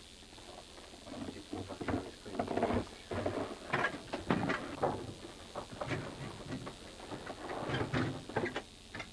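Footsteps crunching through snow, an uneven run of steps and rustles starting about a second in.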